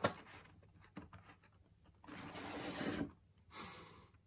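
Soft handling noises of board-game components: a click, then two brief rustles of cardboard or plastic packaging being slid and moved, the first stopping abruptly.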